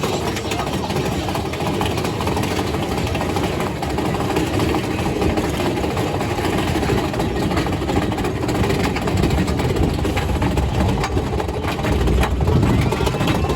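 Big Thunder Mountain Railroad mine-train roller coaster running along its track: a steady loud rumble with close, continuous rattling from the train, getting a little louder near the end.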